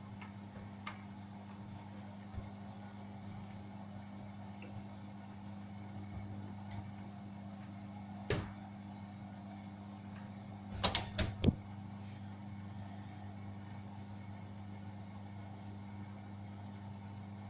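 Beko washing machine running with a steady low hum during its spin-and-drain cycle, with one sharp knock about eight seconds in and a quick run of clicks a few seconds later.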